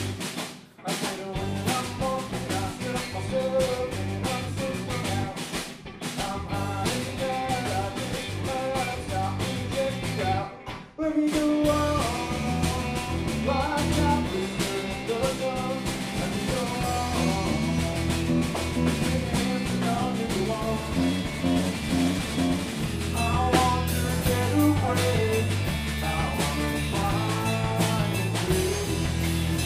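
Live rock band playing: electric guitar, bass guitar and drum kit, with a male lead vocal. The band stops for an instant about a second in and again around eleven seconds in, coming straight back in each time.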